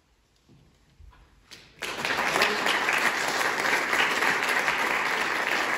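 A hush after the song's last note, then audience applause breaks out suddenly a little under two seconds in and keeps going steadily.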